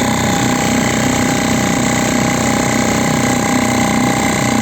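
Small Mercury 3.5 hp outboard motor running steadily at an even throttle, pushing the boat along; the motor is still being run in.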